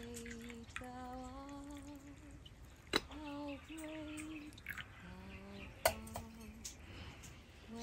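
A woman humming a slow tune in long, held notes, over the faint trickle of tea being poured from a glass teapot into a china cup. Two sharp clinks of glass and china, about three and six seconds in, the second as the teapot is set back on its warmer.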